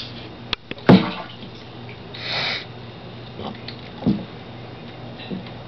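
An alligator splashing in its tank water while feeding on fish: a sharp smack about a second in, a short hiss of churned water a moment later, and a few smaller knocks and sloshes, over a steady low hum.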